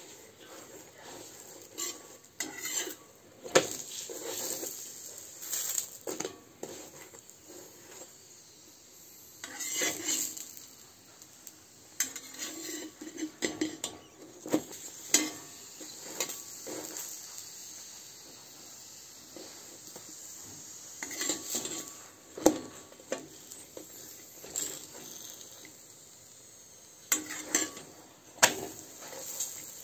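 Metal spatula scraping and clinking against a flat tawa griddle as a roti is pressed and turned, in irregular strokes with quiet gaps between them.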